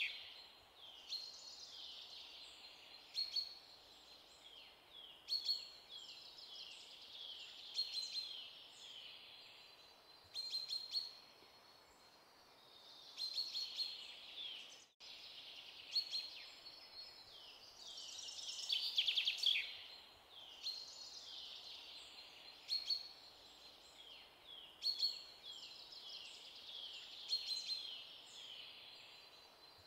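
Small birds chirping and twittering in quick repeated trills, with louder bursts every few seconds and a brief dropout about halfway through.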